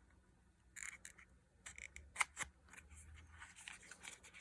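Light scraping, rustling and small clicks of a small product box being handled and opened, with one sharp click about two seconds in.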